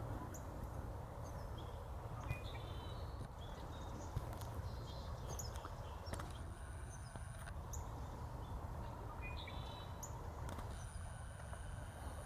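Wild horses' hooves clopping on rocky desert ground, a few sharp strikes among them, while small birds chirp and trill. A steady low rumble sits underneath.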